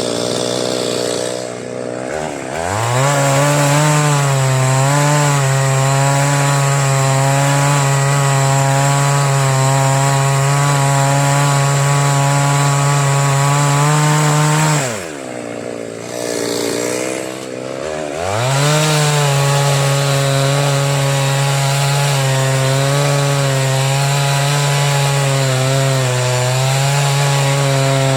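Two-stroke chainsaw run at full throttle cutting wood: it revs up, holds a steady high pitch for about twelve seconds, and drops back to idle briefly about halfway through. It then revs up again and keeps cutting.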